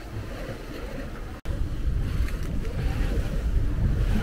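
Wind and sea noise aboard a sailing yacht under way, with wind buffeting the microphone in a steady low rumble. The sound cuts out for an instant about a second and a half in and comes back louder.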